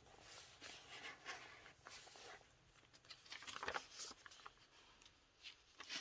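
Faint rustling and brushing of paper as pages of a handmade junk journal are turned and handled, in several short strokes.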